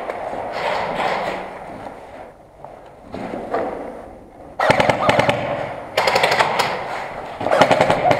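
Airsoft guns firing full-auto, three rapid bursts of shots one after another starting a little past halfway.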